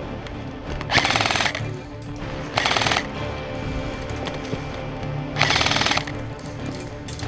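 Airsoft electric guns firing three short full-auto bursts of rapid clicks, one about a second in, one near the middle and one past five seconds.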